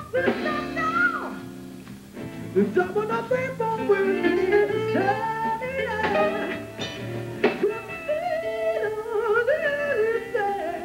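A male lead singer sings a high, gliding melody with vibrato over plucked guitar and bass: a band playing live.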